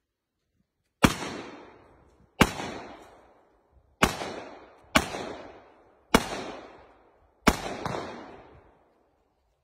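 Seven shotgun shots fired at an uneven pace, one to one and a half seconds apart, the last two in quick succession near the end. Each shot is followed by a long echo that dies away over a second or more.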